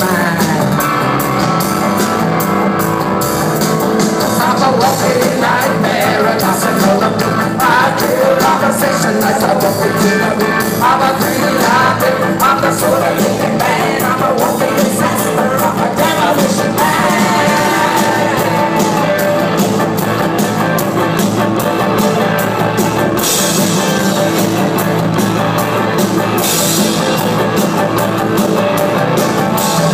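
Live rock band playing loud, continuous music at a concert, heard from in the crowd.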